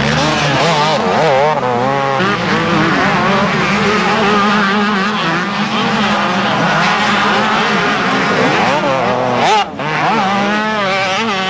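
Motocross bikes racing, their engines revving up and down in rapid swoops as riders brake and accelerate through the corners, more than one bike heard at once.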